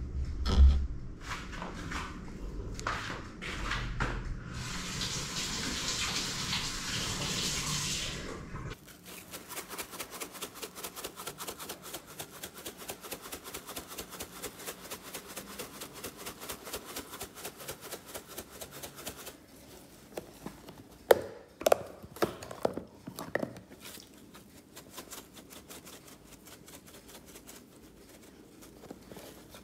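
A spice shaker of dried parsley flakes shaken over a cheese-topped pizza in a fast, even rhythm for about ten seconds. Before it come handling clicks and a rustling hiss, and after it a few sharp knocks.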